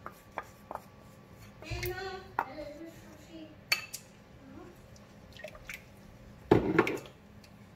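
A wooden spoon stirs harira in a stainless steel pot as a flour binder is stirred in to thicken it, with scattered light knocks and scrapes against the pot. One louder knock comes near the end.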